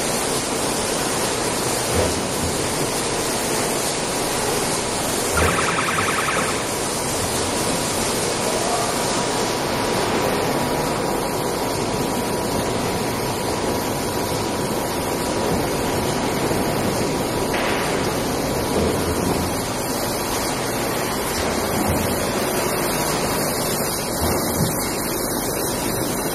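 Automatic bottling line running, its star wheels and conveyor carrying plastic bottles: a steady wash of machine noise with a faint high whine that stops about two-thirds of the way in, a brief buzz about six seconds in, and a few dull knocks.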